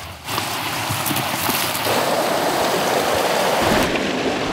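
Small mountain creek rushing and splashing over rocks close by, a loud steady hiss of water. Its tone shifts about two seconds in and again near the end.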